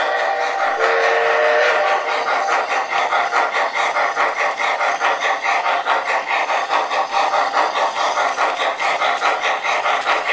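MTH O-gauge Climax model steam locomotive's onboard sound system: a short whistle note about a second in, then steady chuffing at about three beats a second over the rumble of the train running on three-rail track.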